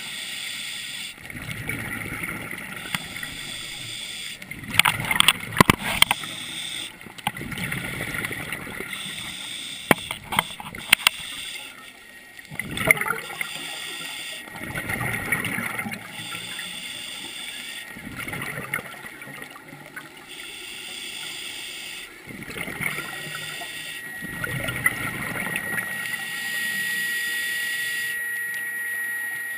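Scuba diver breathing through a regulator underwater: bubbling exhalations alternate with hissing inhalations every few seconds. Sharp clicks and knocks come around five and ten seconds in, and a thin steady whine sets in near the end.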